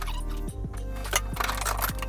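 Background music with a steady beat and bass line.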